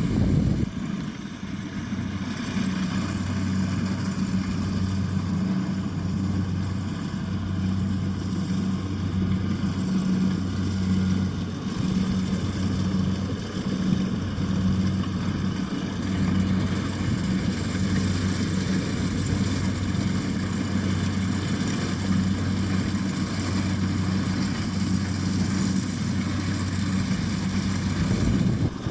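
Engine of rice harvesting machinery running steadily, its hum swelling and easing about once a second.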